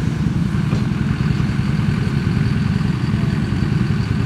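Pickup truck engine running steadily: a low, even drone with no clear revving.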